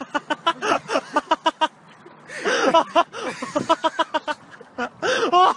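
People laughing hard, in quick ha-ha pulses, broken by a few high rising-and-falling whoops of laughter.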